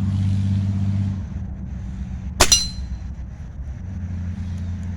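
A single air rifle shot about two and a half seconds in, a sharp crack with a brief metallic ring, firing a 9.5-grain domed lead pellet through a chronograph. A steady low hum runs underneath.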